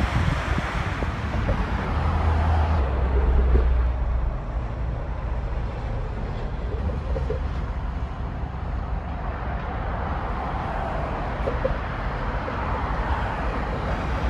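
Steady road traffic noise from a busy multi-lane highway, cars rushing past, swelling slightly as vehicles pass. A heavy low rumble sits under it in the first few seconds.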